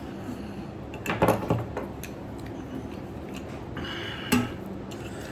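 Light metallic clinks and scrapes of a cut tin can lid being worked loose from the opened can, with a few short knocks about a second in and another near the end.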